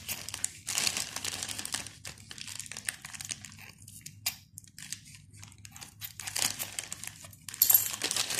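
Plastic courier mailer bag crinkling and rustling as it is handled and cut open with scissors. The crinkling comes in irregular bursts: busy about a second in, sparse in the middle, and loudest near the end.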